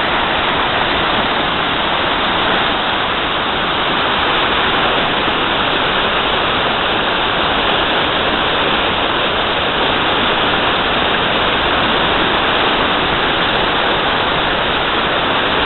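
A waterfall's loud, steady rush of falling water.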